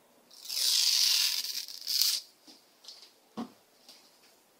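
A hand and knitted sleeve moving close to the microphone as they reach to the front panel of the audio interface, a hissy rustle for about two seconds, followed by a few faint ticks and one short sharp click about three seconds in.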